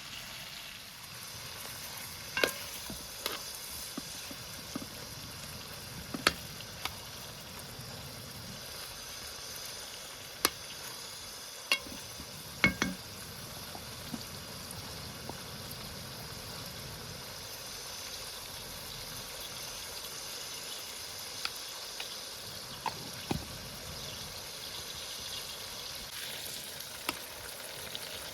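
Food frying with a steady sizzle, broken by scattered sharp clicks and knocks, a few of them loud.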